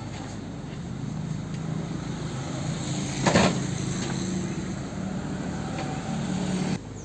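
Diesel generator engine running steadily, with a brief loud clatter about three seconds in. The sound drops off abruptly near the end.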